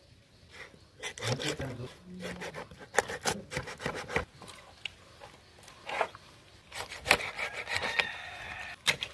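Knife sawing through a catla fish behind the head on a wooden cutting board. The blade makes irregular scraping strokes with sharp clicks and knocks, in clusters about a second in, around three to four seconds in, and again near the end.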